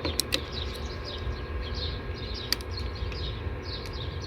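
Small birds chirping in quick, continuous short falling notes over a steady low background hum, with a few sharp clicks near the start and about two and a half seconds in.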